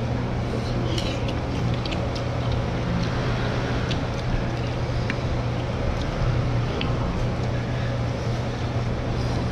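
A steady low hum of background noise, with scattered light clicks of spoons and chopsticks against noodle bowls.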